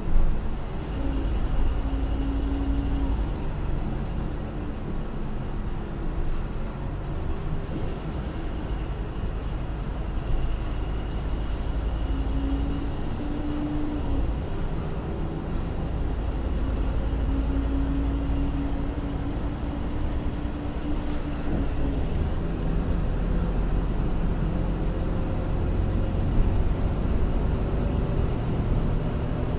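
MAN Lion's City LE Ü city bus with its D0836 EEV six-cylinder diesel and ZF Ecolife automatic gearbox, heard from inside the passenger area ahead of the rear axle. A steady low rumble, with the engine note rising, holding and dropping several times as the bus drives.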